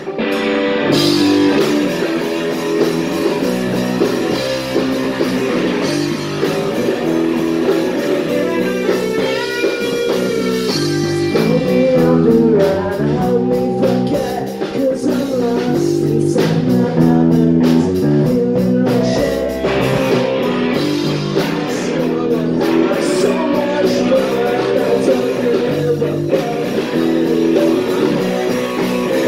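Punk rock band playing live: electric guitars, bass and drum kit, with vocals.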